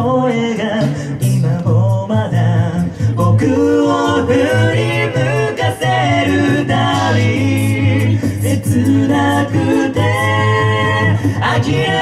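Five-voice a cappella group singing live through microphones: several harmony voices moving together over a held, sung bass line.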